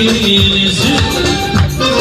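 Loud dance music with a steady beat, the people on the deck dancing to it.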